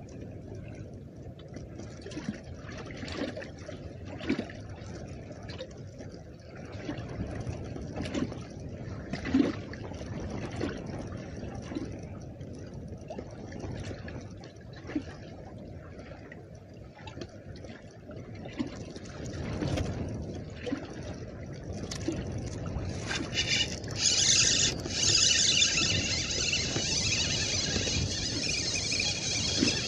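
Choppy lake water lapping and slapping against a bass boat's hull, with scattered light knocks. Near the end a louder, steady hiss joins in.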